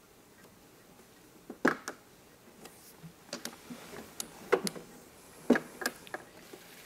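Mahjong tiles clacking as players draw and discard them on the table: a series of sharp, irregularly spaced clicks, some landing in quick pairs.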